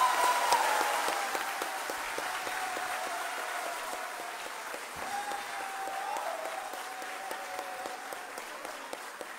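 Audience applauding, loudest just after the speech ends and slowly easing off, with a thin drawn-out tone running over the clapping.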